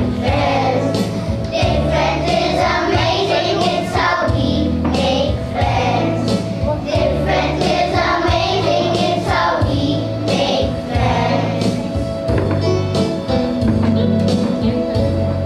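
Children singing together as a choir over a steady instrumental accompaniment.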